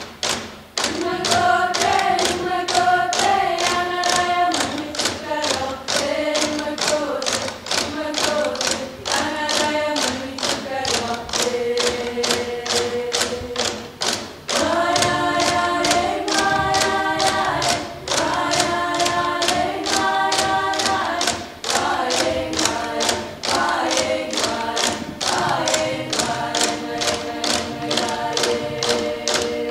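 A group of young Greenlanders singing a traditional drum-dance song in unison, with held notes that step up and down, while beating Greenlandic frame drums (qilaat) with sticks in a steady, even beat.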